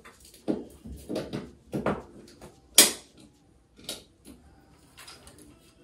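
About six short knocks and clicks from things being handled on a bathroom counter, the sharpest about three seconds in.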